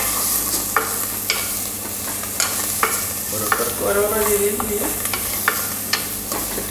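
Chopped vegetables sizzling in an open pressure cooker as they are sautéed to cook off their rawness, with a metal spoon stirring and knocking against the sides of the pot in irregular clicks and scrapes.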